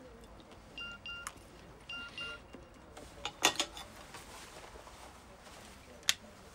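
Cutlery and dishes clinking at a table, a few sharp clinks with the loudest about three and a half seconds in and another near the end. About a second in, and again a second later, come two pairs of short, high electronic beeps.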